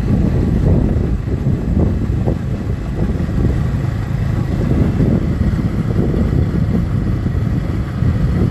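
Wind buffeting the microphone on a moving motorcycle, with the motorcycle's engine and road noise running beneath it in a steady, gusty rumble.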